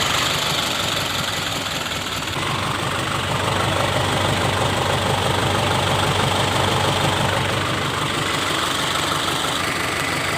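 Isuzu Elf truck engine idling steadily after being started, following a no-power, no-start fault.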